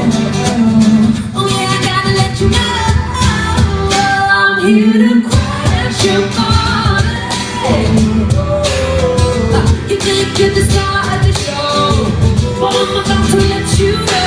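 Live pop band playing through a hall PA, with a voice singing over a steady drum beat.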